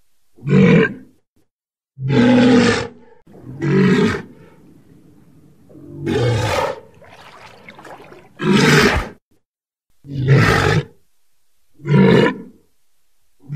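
Walrus calling: a series of about seven loud, low-pitched, rough calls, each under a second long, coming roughly every two seconds.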